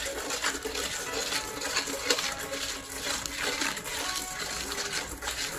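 Metal ladle scraping and clinking against a steel wok while stirring sugar syrup, with frequent short clicks, over background music.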